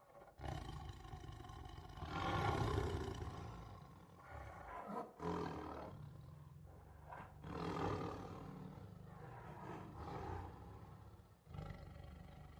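Tiger roaring in a series of separate calls. The loudest and longest comes about two seconds in, with shorter roars following, under a steady low rumble.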